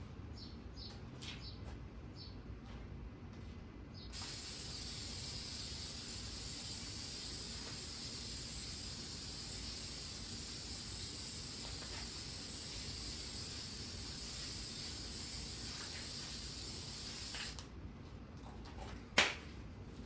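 An aerosol can sprays a coat of headlight sealant in one long, steady hiss of about thirteen seconds, starting a few seconds in and cutting off near the end. A single sharp click follows shortly after.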